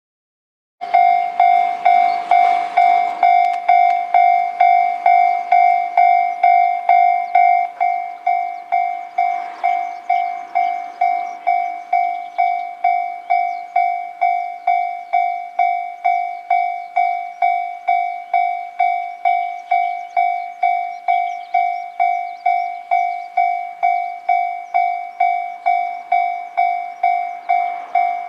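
Japanese railway level-crossing warning alarm, a single electronic bell tone struck about twice a second, starting suddenly about a second in; it drops in loudness about eight seconds in and keeps ringing. The alarm signals that a train is approaching the crossing.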